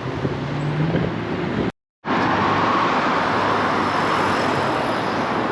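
Steady road-traffic noise, with a brief total dropout a little under two seconds in.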